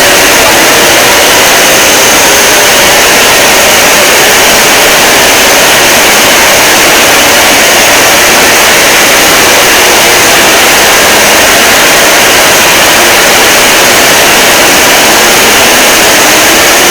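Extremely loud, heavily clipped noise spread across all pitches, steady and unbroken, like a jet roar mixed with static: a deliberately overdriven fake emergency alert sound in which no alert tones stand out.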